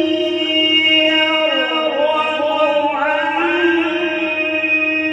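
Male Quran reciter chanting in tajweed style (qirat), holding one long note, then winding through a melodic turn that dips and rises in pitch, and settling into another long held note.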